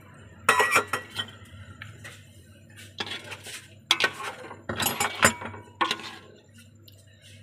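Metal ladle clinking and scraping against the side and bottom of a metal cooking pot as a simmering kadhi is stirred, in several short bursts.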